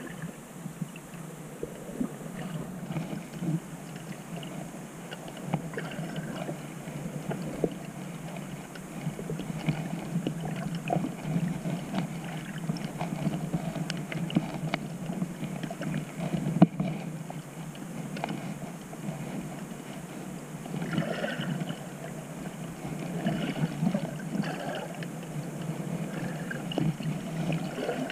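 Underwater noise picked up by a camera in the sea: a muffled, uneven wash and gurgle of moving water with scattered small clicks and a single sharp knock a little past halfway.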